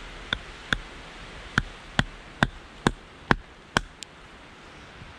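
About nine sharp chopping strikes, roughly two a second, each with a short ringing: a blade being driven into a piece of fatwood to split it open. The first two strikes are lighter, and the last one, near the end, is faint.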